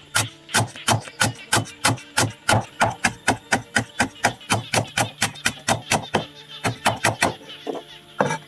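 Cleaver chopping food on a thick wooden chopping block in quick, even strokes, about four a second, stopping shortly before the end.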